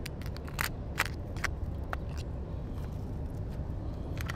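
Light clicks and taps of a clear plastic lure box being handled, several in the first two seconds and two more near the end, over a steady low rumble.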